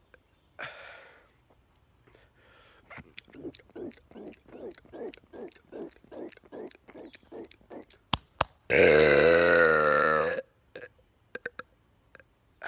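A long, loud burp lasting nearly two seconds, after a run of short, evenly spaced sounds about two a second.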